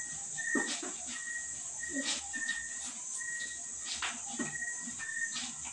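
Clothes being hand-washed in a plastic basin: irregular splashing and rubbing sounds. Under them runs a steady high insect hiss and a short high chirp repeating about twice a second.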